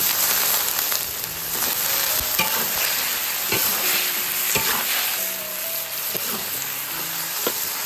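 Pork, chillies, tomatoes, konjac tofu and eggplant sizzling in a hot pan while being stir-fried, a spatula scraping and knocking against the pan at irregular moments.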